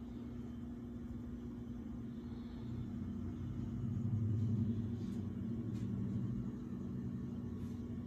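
Low steady mechanical hum with a deeper rumble that swells louder in the middle and then eases back.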